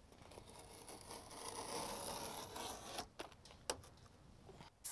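Faint rustling and rubbing of self-adhesive membrane being pressed down by hand onto a wooden sill, with a few light clicks and ticks after about three seconds.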